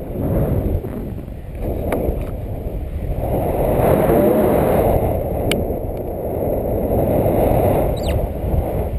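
Wind rushing over the microphone of a camera on a tandem paraglider in flight: a rough, uneven rumble that grows louder about three seconds in and stays strong.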